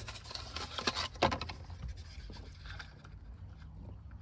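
Small plastic clicks and scrapes as a replacement USB port module is handled and pressed into its dashboard housing, with one sharper click about a second in, over a low steady hum.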